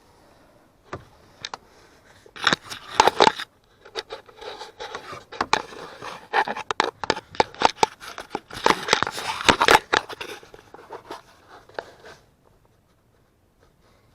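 Irregular clicks, scrapes and rustling of hands working among plastic dashboard trim and wiring under the dash, busiest around three seconds in and again near ten seconds, dying away near the end.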